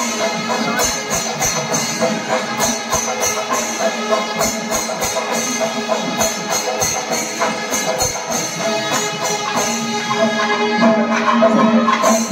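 Kerala temple festival percussion ensemble playing: drums and hand cymbals keeping a steady clashing rhythm under a sustained wind-instrument tone, growing a little louder about ten seconds in.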